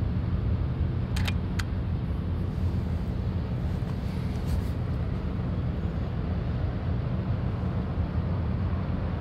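Steady low rumble of wind buffeting the phone's microphone, with two faint ticks a little over a second in.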